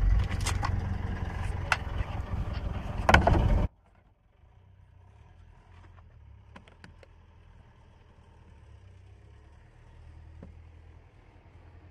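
Rustling handling noise with a few sharp plastic clicks as a car door-mirror glass is pressed back onto its mount. About four seconds in it cuts abruptly to a much quieter low hum with a few faint clicks.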